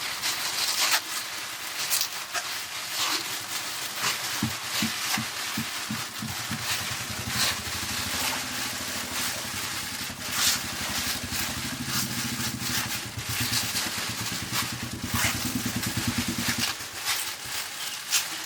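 A small engine starts about four seconds in with a few slow strokes that quickly speed up, runs steadily, and stops shortly before the end. Under it lies a constant hiss with scattered clicks.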